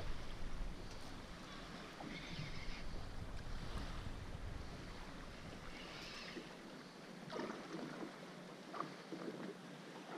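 Wind buffeting the microphone and water lapping against a small boat's hull, with a few soft knocks of handling. The low wind rumble is strongest in the first few seconds and eases off after about six seconds.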